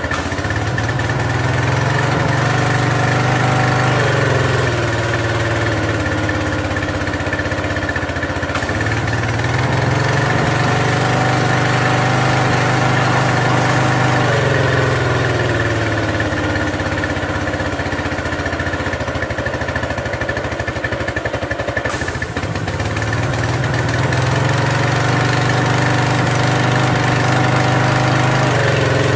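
Briggs & Stratton 175cc overhead-valve engine on a Craftsman 2700 psi pressure washer running. It speeds up as the spray trigger is pulled and drops back when it is let go, three times over, under the hiss of the high-pressure water jet. The owner thinks the idle-down is not working properly.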